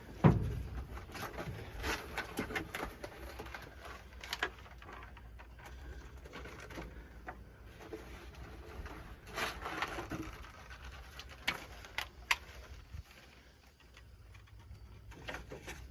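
Soft, low bird cooing with scattered light clicks and knocks.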